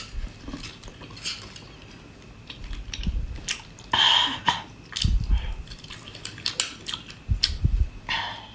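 Close-up eating sounds: chewing, with sharp clicks of utensils or tableware against a dish and a couple of short noisy bursts such as a slurp or crunch.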